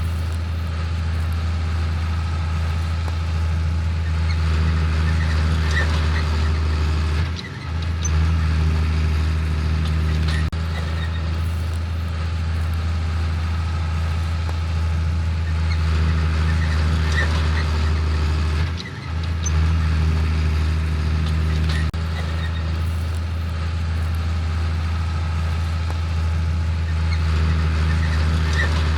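Heavy farm machinery working in the field: a deep, steady diesel engine drone that dips briefly about every eleven seconds.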